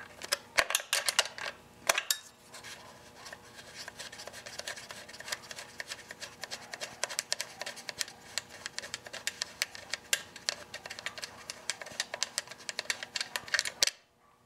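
Ratchet wrench clicking as 8 mm bolts are backed out of a small engine's plastic shroud: a few louder clacks in the first two seconds, then a fast, steady run of clicks that stops about half a second before the end.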